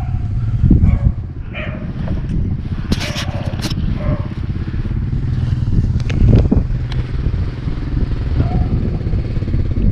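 A small engine running steadily at idle, with a few brief clicks and rustles over it.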